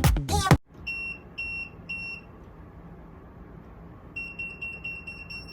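An electronic beeper sounds three short high beeps, then after a pause of about two seconds a fast run of about seven beeps at the same pitch.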